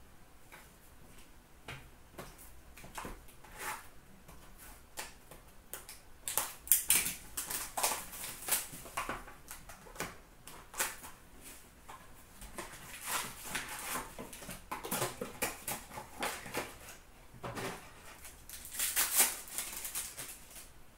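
18-19 Upper Deck Artifacts hockey cards being handled and packs opened: a run of short clicks, crinkles and rustles as wrappers are torn and cards are slid and set down on a glass counter. It gets busier and louder about six seconds in.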